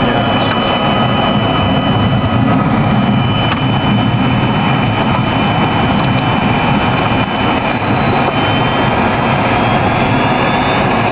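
Airliner's engines running steadily as it taxis along the runway after landing, heard from the cockpit: a dense even rumble with a steady high whine, and a second whine rising in pitch near the end.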